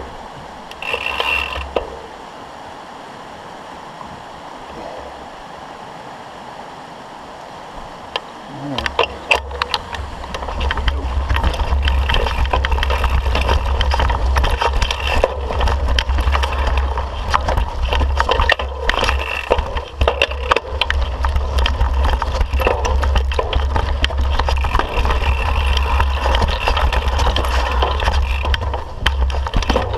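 Mountain bike riding over a rocky trail: dense, irregular rattling and clicking of the bike and its tyres over rock, with heavy wind rumble on the camera microphone. It starts about nine seconds in, after a quieter stretch of steady background noise.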